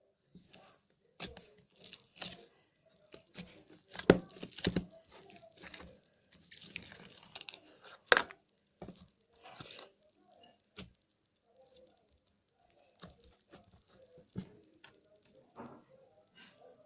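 Slime being squished and worked by hand, giving irregular wet clicks, pops and crackles, with a few louder pops about four and eight seconds in.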